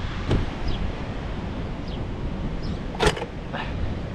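A few sharp clicks and knocks from tools being handled at an air-conditioning condenser, the loudest a little after three seconds, over a steady low outdoor rumble.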